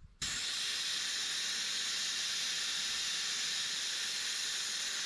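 Air hissing steadily out of a Toyota LandCruiser 200 Series tyre as it is let down toward about 18–20 PSI for driving on sand. The hiss starts suddenly just after the beginning and holds at an even level.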